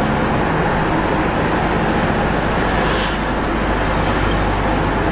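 Steady engine and road noise heard from inside a moving vehicle's cab at highway speed, with a brief hiss about three seconds in.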